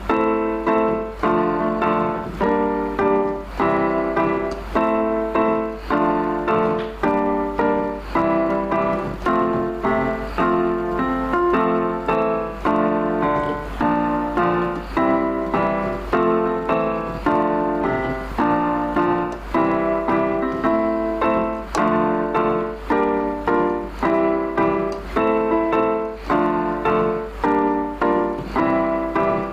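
Background piano music with a steady, repeating rhythm of notes and chords.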